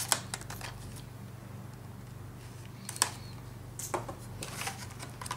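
Clear plastic blister packaging clicking and crackling as it is cut and pried open with a knife: sharp clicks near the start and about three seconds in, then a run of crinkling as the plastic is pulled apart.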